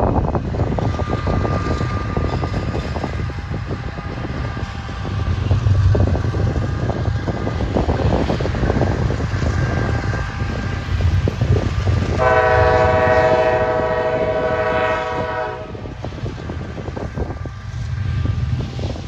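CSX diesel freight locomotive running past at the head of a double-stack container train, with a steady low engine rumble. About twelve seconds in its air horn sounds one long chord of several notes, lasting about three and a half seconds.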